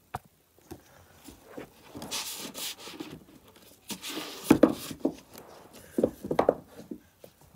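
Phone handling noise: cloth rubbing and brushing against the phone's microphone in two hissing rubs, then several sharp knocks and bumps as the phone is handled.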